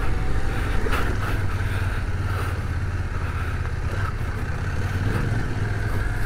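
CF Moto 800MT Touring's parallel-twin engine running at low revs in first gear, a steady low drone as the bike rolls slowly over rock and gravel, with a couple of short knocks about a second in.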